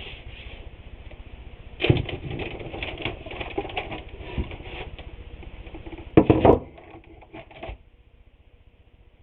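Handling noises while working on glued wooden boards: irregular taps, rubbing and clunks, with a loud knock about two seconds in and a louder cluster of clunks about six seconds in, fading out shortly after.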